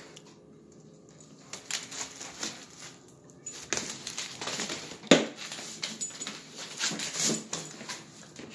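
Small dog rummaging in a plastic shopping bag, the plastic crinkling and rustling in irregular bursts, with one sharp knock about five seconds in.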